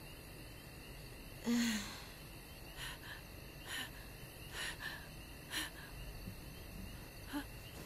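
A woman's distressed breathing: a voiced gasp about a second and a half in, then several short, breathy gasps.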